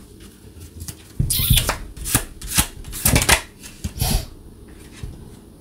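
Tarot cards being shuffled by hand: a run of short, quick strokes starting about a second in and stopping about four seconds in.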